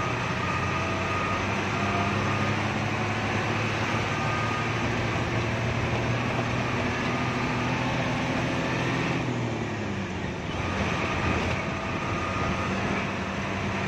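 Hino AK3HR Ranger bus's diesel engine running under way, heard from inside the cabin with road noise. The engine note holds steady, dips in pitch about ten seconds in, then steadies again.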